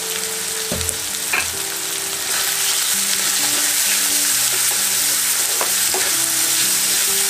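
Chopped onions and tomatoes with ground spices sizzling in hot oil in a kadai while a wooden spatula stirs and scrapes them, with a few light knocks. The sizzle gets louder about two seconds in as the stirring turns the food over.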